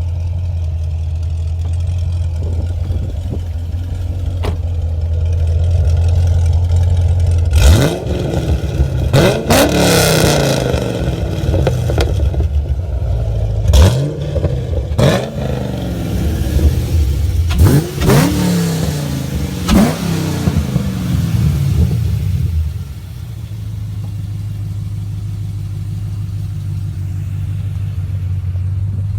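2015 Camaro SS's 6.2 L LT1 V8, with LG headers and high-flow cats, idling steadily, then blipped through a series of quick revs that rise and fall, before settling back to idle about 23 seconds in.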